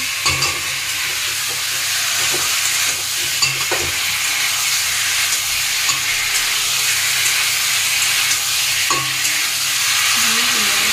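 Boiled potato pieces sizzling in spiced oil in an aluminium kadai, a steady frying hiss, with a metal spatula now and then clicking and scraping against the pan as they are stirred.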